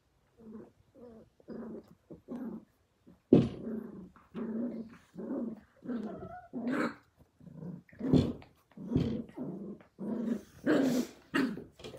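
Australian Cattle Dog puppies growling at play: a run of short growls, faint at first and louder from about three seconds in.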